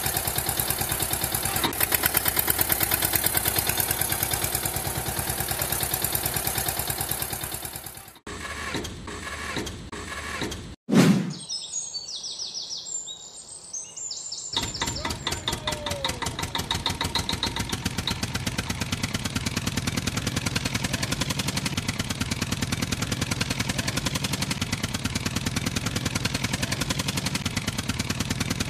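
Tractor engine sound effect running steadily with a fast, even chugging beat. It drops out about eight seconds in. A sudden loud hit follows near eleven seconds, then a few seconds of high chirping, before the engine sound starts up again around fourteen seconds and runs on.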